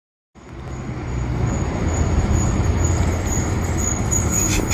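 Cummins ISL9 diesel engine of a Gillig Low Floor transit bus running, a steady low drone with a thin, steady high whine above it. It starts about a third of a second in, builds for about a second, then holds level.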